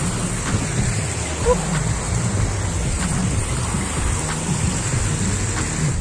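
Fast-flowing mountain stream water rushing, a steady noise with a heavy low rumble.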